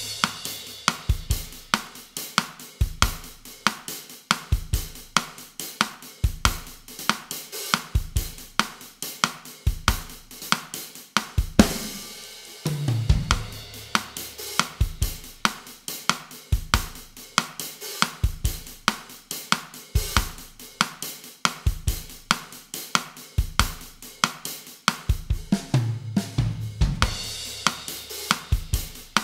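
Drum kit playing a bossa nova groove at 140 bpm, with an even pattern of hi-hat, bass drum and snare strokes. A cymbal crash with a low drum hit comes about halfway through and again near the end.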